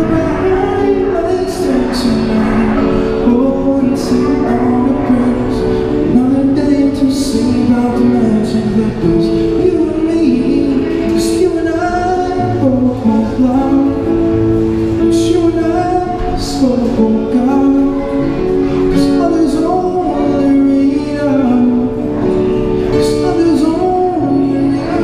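A man singing into a microphone while strumming a Yamaha acoustic guitar, an indie-folk song played live.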